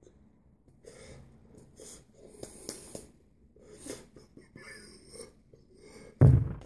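A man's noisy, hissy breaths in several short bursts, then a single heavy thump about six seconds in as his hand hits the table the phone rests on.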